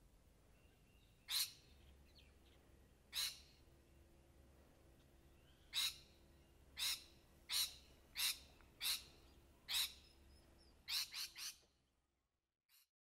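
Rainbow lorikeet calling: about a dozen short, high-pitched screeches a second or so apart, ending in a quick run of three.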